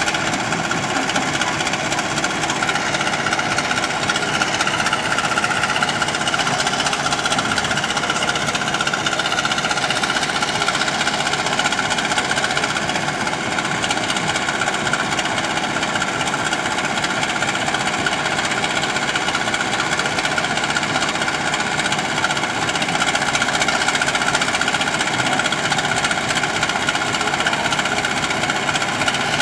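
JCB backhoe loader's diesel engine running steadily while the backhoe arm digs, with no let-up.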